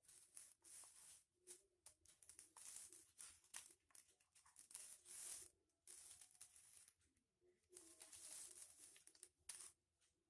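Foil-backed paper crinkling and rustling in quiet, irregular bursts as it is folded and creased by hand.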